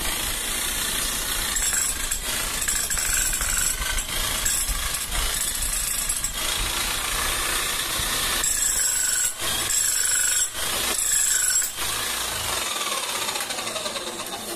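11 kg electric demolition breaker (Bosch GSH 11 E type) running a test after a full service with a new armature and carbon brushes: a steady rapid hammering rattle that drops out briefly three times, then a falling whine near the end as the motor winds down.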